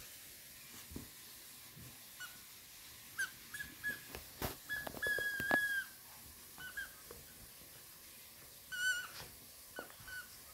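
A Bichon frise chewing a plush elephant toy: a string of short, high squeaks of nearly the same pitch, the longest and loudest about halfway through, with faint clicks from the chewing between them.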